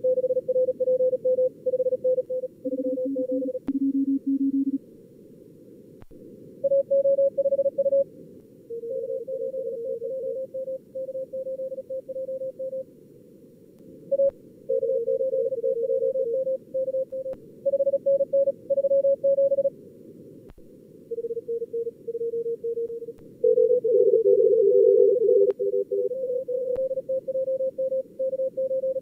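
Fast Morse code (CW) at about 38 words per minute, simulated by a contest logger's practice mode: keyed tones at several pitches, sometimes two at once, with short gaps between exchanges, over a steady bed of receiver noise hiss.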